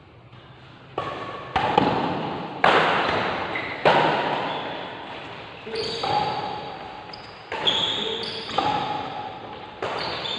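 Badminton rally: rackets hit the shuttlecock about eight times in ten seconds. Each sharp hit echoes in a large hall.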